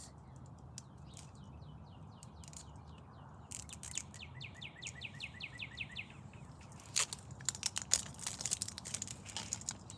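A small bird singing a fast trill of short, falling chirps, about four a second, for several seconds. Near the end comes sharp crinkling and clicking of plastic wrapping being handled.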